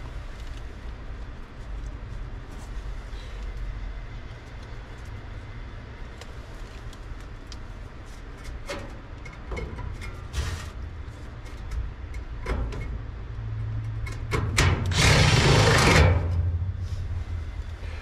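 Rod or brush knocking and scraping inside the metal cells of a furnace heat exchanger, with a power drill spinning it briefly and loudly about 15 seconds in for a second and a half. This is the sound of a plugged heat exchanger being cleared. A steady low hum runs underneath.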